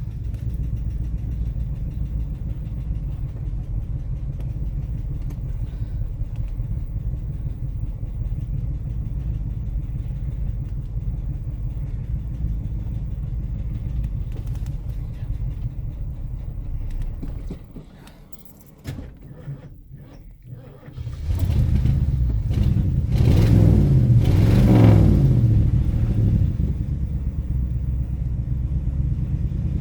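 1977 Ford Thunderbird's V8 running just after a cold start, a steady low rumble. About 17 seconds in it drops away for a few seconds, then picks up again and is revved up and down a couple of times before settling back to a steady run.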